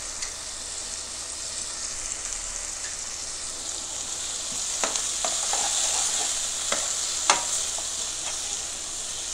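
Chopped tomatoes, small onions and curry leaves sizzling steadily in oil in a non-stick pan. From about five seconds in, a spatula stirs them, with scattered clicks and scrapes against the pan.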